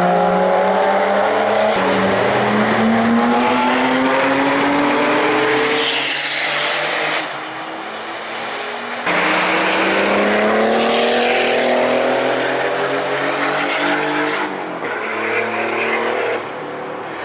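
Porsche 911 flat-six engines accelerating hard on a race track, the first from a 997 GT3 RS 4.0. There are three long pulls, each climbing steadily in pitch, with short quieter breaks between them.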